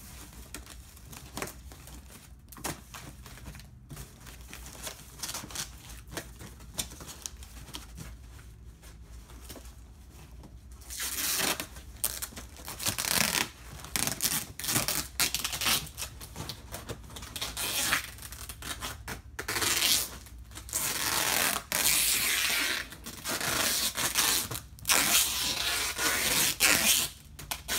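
Cardboard being handled and folded with soft scrapes and clicks, then from about eleven seconds in, packing tape pulled off the roll in repeated loud screeching pulls as the cardboard is taped shut.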